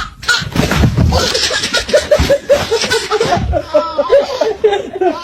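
People laughing hard: a long run of short, quick laughs.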